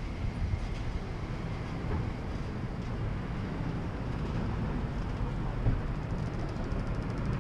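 Steady low rumble of city street traffic, with one brief thump about six seconds in.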